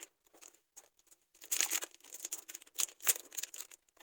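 Plastic packaging crinkling and rustling in several short bursts, as a pack of M-seal epoxy putty is handled.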